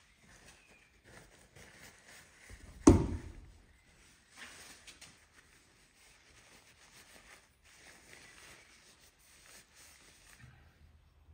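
One sharp thump on the wooden bench about three seconds in, then soft rustling as a silver-and-copper mokume gane ring is wiped with a paper tissue in cotton-gloved hands. The rustling stops near the end.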